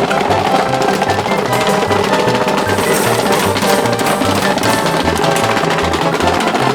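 Background music with a steady drum beat and a bass line stepping through short notes.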